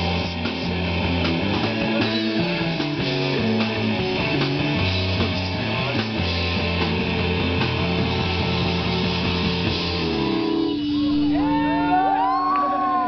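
Live rock band playing with electric guitar. About ten seconds in the full band stops, leaving a held note with wavering, sliding high tones over it.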